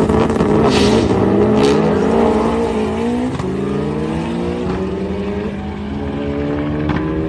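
A car engine accelerating hard, its pitch climbing steadily over several seconds with a few brief breaks.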